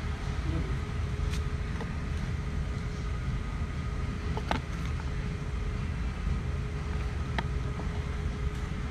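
Steady low rumble of indoor background noise with a faint constant hum. A few light clicks of a plastic-carded package being handled come about a second in, midway, and near the end.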